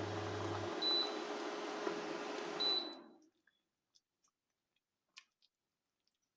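Steady hiss with a low hum, broken by two short, high electronic beeps about a second apart and near three seconds in. The hiss then cuts off, leaving near silence with a few faint clicks.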